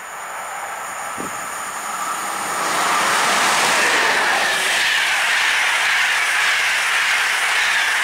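A PKP Intercity express, with an EP09 electric locomotive and its passenger coaches, passing through at speed. The wheel-on-rail noise grows louder over the first few seconds as the locomotive comes up, then stays loud as the coaches go by.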